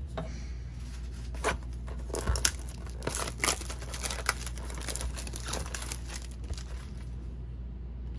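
Foil trading-card pack wrappers being torn open and crinkled by hand, an irregular run of crackles and short rips that is busiest in the middle and thins out near the end.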